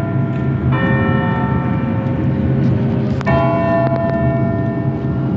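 Tower bells of Toronto's Old City Hall clock tower ringing. Two strikes come about two and a half seconds apart, each ringing on into the next, over a steady low traffic rumble.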